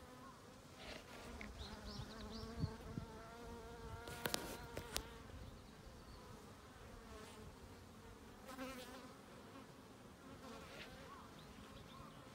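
A swarm of bees buzzing among blossoming plum trees: a faint, steady, wavering hum, with a few sharp clicks about four seconds in.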